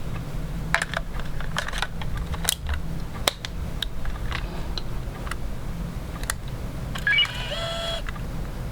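A compact digital camera being handled: scattered small clicks and taps, then near the end a short whirring tone of about a second.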